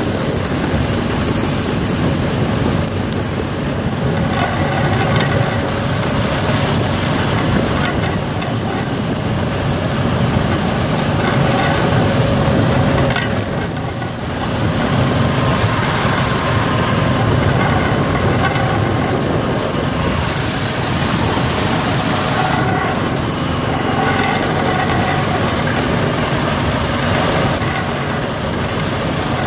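Motorised rail draisine riding along narrow-gauge track: its engine running steadily and its wheels rolling on the rails, with a brief dip in level about halfway.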